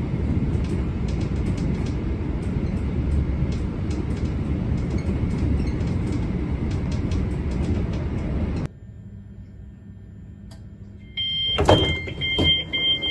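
Steady low rumble inside a moving train carriage. After a cut, a train's door-warning beeps sound as two steady high tones, and a sliding door opens with a sudden loud clunk about a second later.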